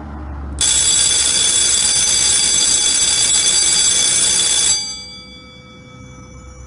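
Electric alarm bell set off by a programmable bell timer's manual trigger button: it starts suddenly about half a second in, rings loudly and steadily for about four seconds, then cuts off, its gong ringing down briefly.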